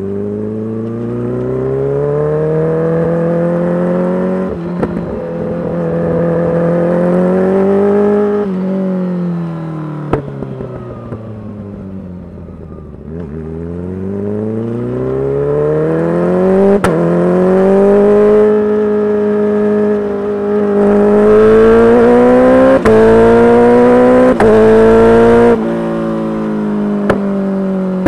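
Kawasaki Ninja H2's supercharged inline-four through a full titanium exhaust, ridden through the gears. The pitch climbs under acceleration with a short dip at each upshift. Between about eight and thirteen seconds in, the pitch falls steadily as it slows. It then pulls hard again, with several quick upshifts near the end.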